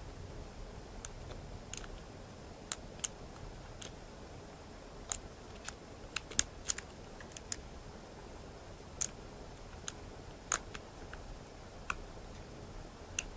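Lock pick and tension wrench working the pin tumblers of a Draper Expert Security padlock with mushroom pins: irregularly spaced sharp metallic clicks as the pins are lifted and set one at a time.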